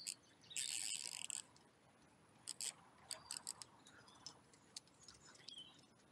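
Fishing reel giving a short, fast ratcheting rasp about half a second in, then scattered single clicks over the next few seconds.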